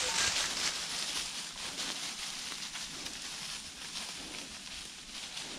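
Dry fallen leaves crackling and rustling under many quick footsteps, growing gradually fainter as they move off.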